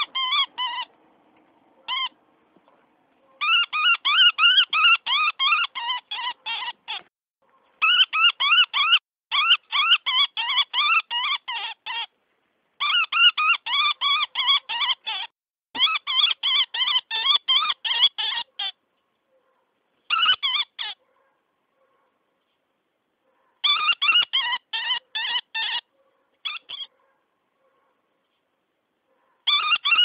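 Woodpecker distress call used as a predator-hunting lure: rapid, harsh, squealing notes at about five a second, coming in bouts of a few seconds with short pauses between them. The sound mimics a bird in distress to draw in coyotes, foxes and bobcats.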